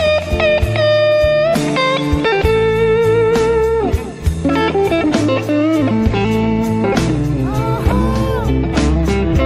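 Background blues-rock music led by electric guitar, with long held notes and string bends over bass and a steady beat.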